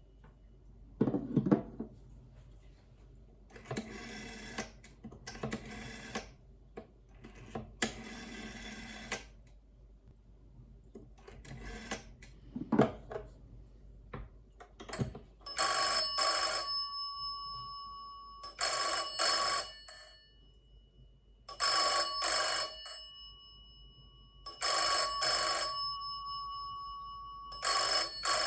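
Vintage British rotary dial desk telephone: handling clicks and the rotary dial run off and whirring back three times, then the bell set's ringer ringing in the British double-ring cadence, two short rings then a pause, repeating about every three seconds.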